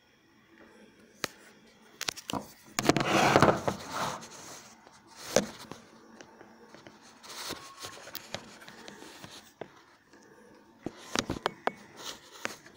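Hilton single-cup drip coffee maker brewing: irregular gurgling and hissing bursts with scattered clicks, the loudest burst about three seconds in.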